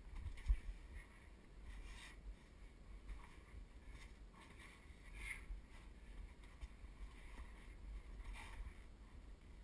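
Faint rustling and scraping of a hiker and gear brushing the sandstone walls of a tight slot canyon, over a low rumble of camera handling.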